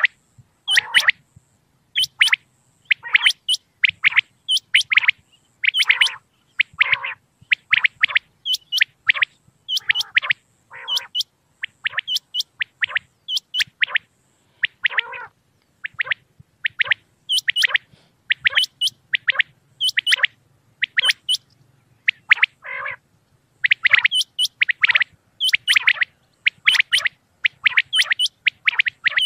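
Common quail calling: a steady run of short, sharp calls, one to two a second, mixing high-pitched calls with lower-pitched ones.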